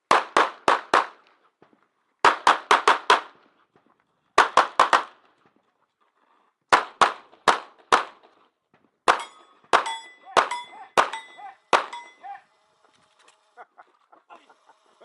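Firearm shots fired in quick strings of four or five, with pauses between. In the last string, from about nine seconds in, each shot is followed by the short ringing ping of steel targets being hit.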